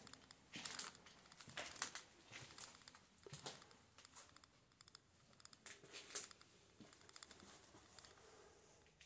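Faint, irregular crinkling and crackling with scattered sharp crunches, loudest about two seconds in and again about six seconds in.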